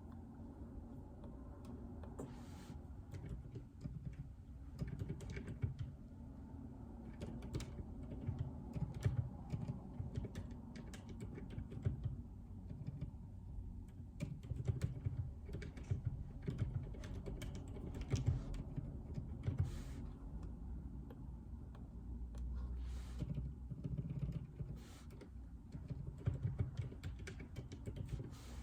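Typing on a JJK84 mechanical keyboard with Outemu Silent Peach linear switches: a dense, irregular run of soft, dampened keystrokes with a few brief lulls.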